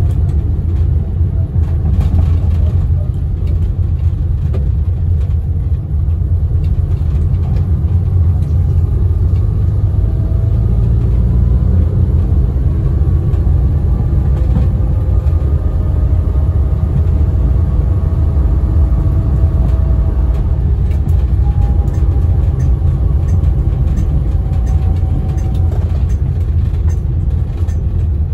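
Inside the cabin of a 1975 Austin Allegro Mk1, its 1098cc A-series four-cylinder engine running with a steady low rumble while the car is driven. Over it, a faint whine from the A-series four-speed gearbox rises and falls in pitch several times.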